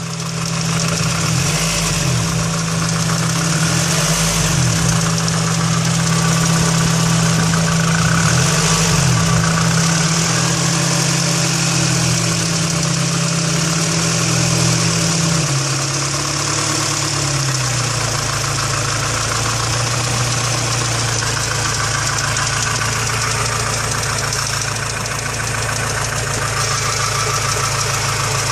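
Honda B16A2 1.6-litre DOHC VTEC four-cylinder engine idling with a rattling, clacking knock, in an engine freshly rebuilt with 81.5 mm pistons. The idle note settles slightly about halfway through.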